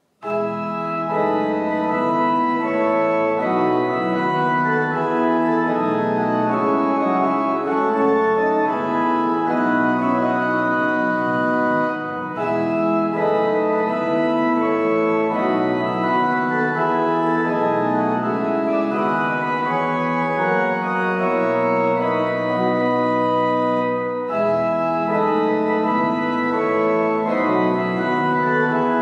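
Organ playing a closing voluntary after the blessing: sustained chords that change every second or so, with brief breaks between phrases about 12 and 24 seconds in.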